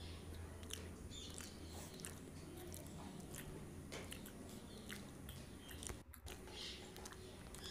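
Close-miked chewing and biting of crunchy sev, with many short sharp crunches and mouth clicks. The sound cuts out briefly about six seconds in.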